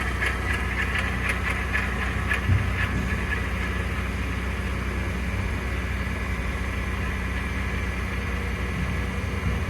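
Ford F-150 PowerBoost hybrid's 3.5-litre twin-turbo V6 running after a cold start, with a rhythmic grinding rattle of about three to four strikes a second for the first three seconds, then settling to a steady idle hum. The grinding persists even after the flex plate and separator plate were replaced.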